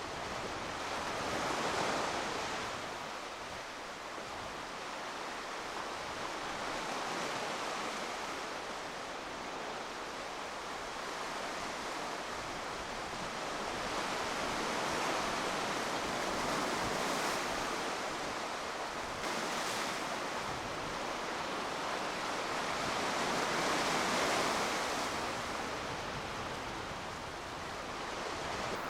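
Sea surf: waves washing in, in slow surges that swell and fade every several seconds, with a brief higher hiss now and then.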